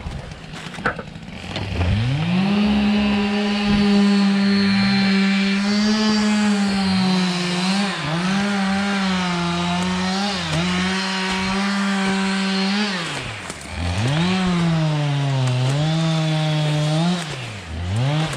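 Two-stroke Husqvarna 572 XPG chainsaw revving up about two seconds in and cutting beech at full throttle, its pitch sagging briefly under load a few times. It drops off about two-thirds through, then revs up again into the cut. The saw is fairly new and not yet run in, which the owner says makes it sound a little different.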